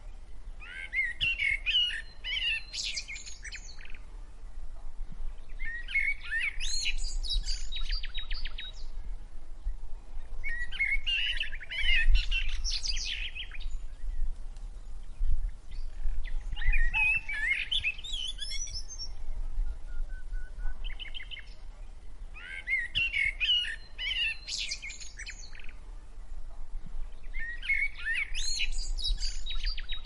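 A songbird singing: a rich, varied phrase of chirps, whistles and warbles lasting about three seconds, repeated six times at intervals of roughly five seconds.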